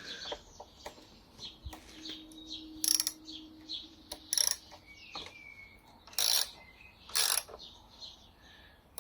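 Ratchet wrench clicking in several short runs, with scattered clinks of tools, as bolts on a motorcycle's front fork assembly are worked loose.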